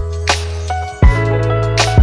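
Background music with a steady beat: deep drum thumps about once a second under held bass and melody notes.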